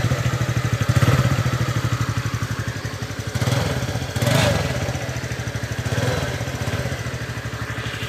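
TVS Ntorq scooter's single-cylinder engine running steadily with an even pulse, picking up briefly about four seconds in. It runs smoothly, the knocking gone now that the loose magneto (flywheel) nut has been tightened.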